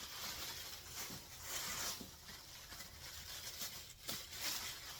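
Rustling and rubbing as plastic dishware and its packaging are handled, with a few light clicks.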